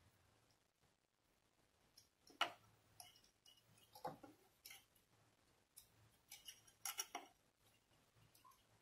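Faint, scattered light clicks and taps of a smart lock cylinder and its wire being handled and fed into a door lock's cylinder hole, the sharpest about two and a half seconds in and a quick cluster near seven seconds.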